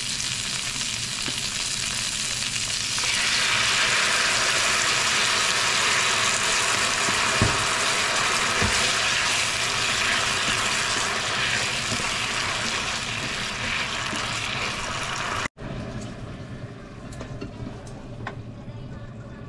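Asparagus spears sizzling in a nonstick frying pan, the sizzle growing louder about three seconds in and holding steady, with a couple of knocks from a wooden spatula. It cuts off abruptly near the end, leaving only faint clicks.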